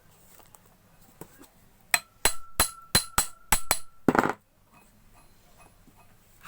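Hammer blows on a steel punch against a monoblock water pump's impeller, staking it so it stays tight on the shaft and the pump stops making noise. About seven quick, sharp metallic strikes over two seconds, with the metal ringing between them, then one duller knock.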